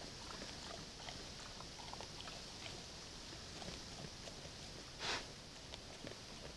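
Brown bears feeding at a bait box, making small scattered clicks and crunches as they eat, over the steady hiss of a trail camera's microphone. About five seconds in there is a single short, louder burst of noise.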